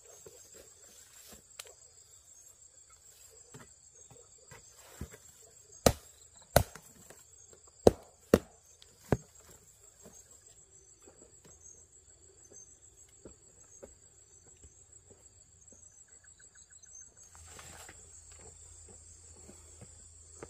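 Insects chirring steadily at a high pitch, with five sharp knocks between about six and nine seconds in. A rustling noise starts near the end.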